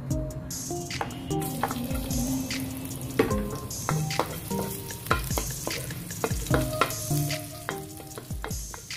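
Minced garlic sizzling in hot oil in a metal wok, with a wooden spatula scraping and knocking against the pan as it is stirred.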